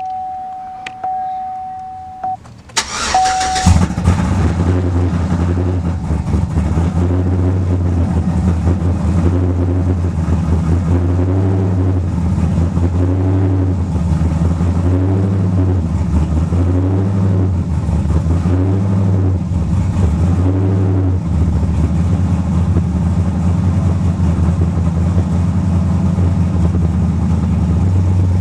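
A steady warning chime sounds, then the truck's cammed V8 cranks and starts about three seconds in. It settles into an idle that pulses in level about every second and a half.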